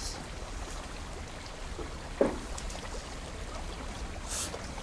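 Steady quiet river ambience: flowing water with a low wind rumble, a soft knock about two seconds in and a brief hiss near the end.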